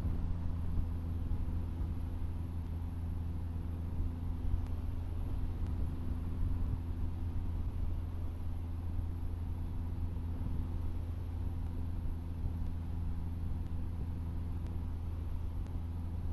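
Cessna 152's four-cylinder Lycoming O-235 piston engine and propeller droning steadily at constant power, with no change in pitch.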